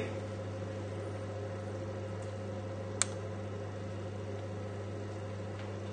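Steady low hum of a running mains-powered appliance or fan, with one short click about three seconds in.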